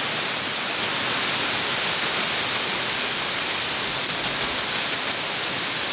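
Narada Falls, a waterfall, pouring in a steady, unbroken rush of falling water.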